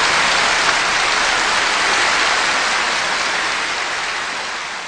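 Steady hiss-like rushing noise that fades gradually away.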